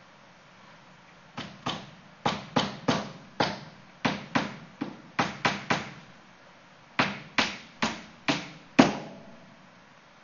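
A series of about seventeen sharp knocks in irregular bursts of two or three, starting about a second and a half in and stopping near the end, the last one the loudest.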